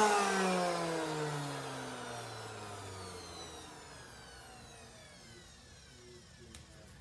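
Electric orbital sander switched off and spinning down, its hum falling steadily in pitch and fading away over about four seconds.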